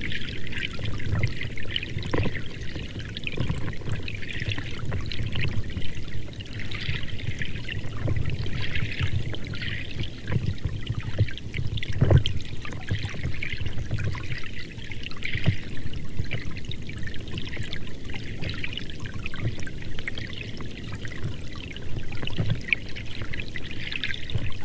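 Water running or pouring in a steady, splashing flow.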